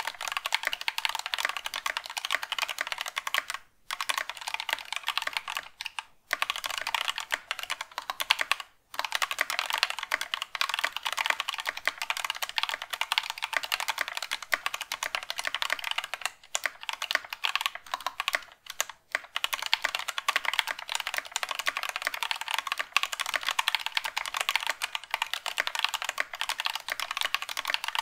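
Fast typing on a GK61 60% keyboard fitted with stock, unlubed Thic Thock Marshmallow linear switches (nylon housing, POM stem, progressive spring): a dense run of keystroke clacks, broken by a few short pauses. The typist hears it as a hollow sound with a bit of spring ping, which he puts down to the stock switches and the hollow GK61 case.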